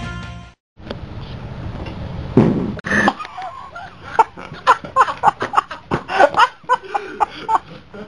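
Music cuts off at the start. After a moment of silence, a person coughs about two and a half seconds in, then their voice runs on in a string of short, quick vocal sounds.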